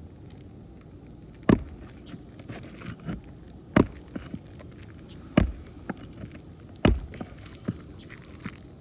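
Four sharp knocks about one and a half to two seconds apart, with lighter taps between: a shingle snake (ripper) being struck and worked under an asphalt shingle to cut and pull the roofing nails.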